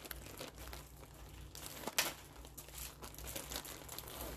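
Clear plastic zip-top bag crinkling as it is handled and worked at its zipper seal, with irregular crackles and one sharper snap about two seconds in.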